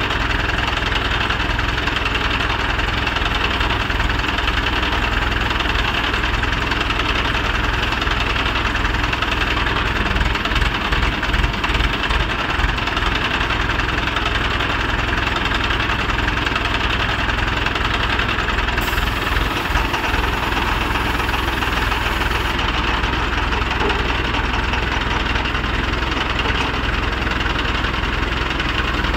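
Mobile cranes' diesel engines running steadily as they hoist a heavy steel tower upright.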